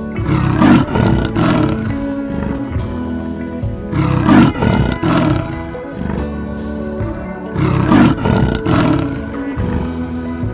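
A big cat roaring in three bouts, each a few short strokes, about four seconds apart, over steady background music.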